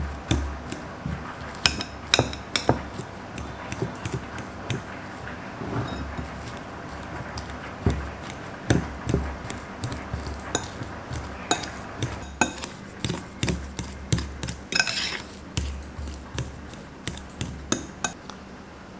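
Metal fork mashing boiled potatoes in a glass bowl: irregular clinks and taps of the tines against the glass as the potato is pressed down, with a quick cluster of clinks about two seconds in and again near the end.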